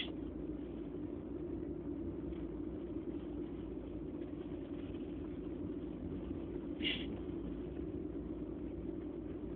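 Steady low rumble of background noise, with one short sniff about seven seconds in during a pause in an allergy sneezing fit.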